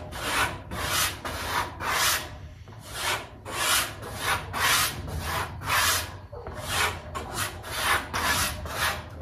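A VG10 steel knife blade being stropped on the rough side of a hanging kangaroo leather strop: a run of scraping strokes, about two a second, with brief pauses about two and a half and six seconds in.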